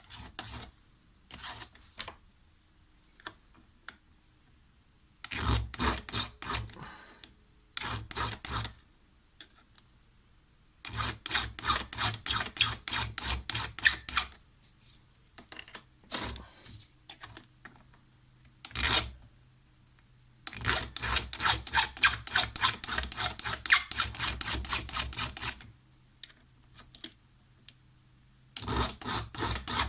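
A flat file rasping down the depth gauges (rakers) of a chainsaw chain, run over a depth-gauge tool. It goes in bursts of quick back-and-forth strokes, with short pauses between the bursts.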